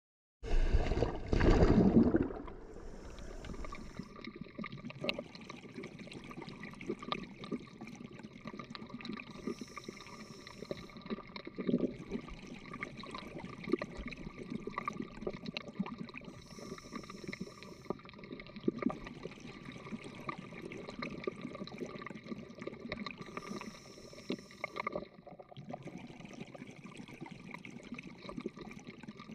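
Underwater ambience on a coral reef: a steady crackle of small clicks, with a hissing, bubbling rush coming back about every seven seconds. A short loud burst comes about a second in.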